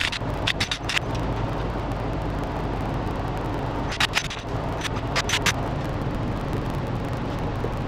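Several sharp metallic clinks and knocks of tools and parts being handled at a truck's front wheel hub, in two short clusters: one in the first second, and one from about four to five and a half seconds in. A steady low hum runs under them.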